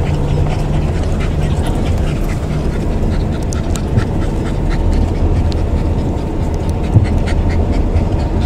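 A dog panting quickly and steadily in the heat, over the steady low rumble of the moving car it is riding in.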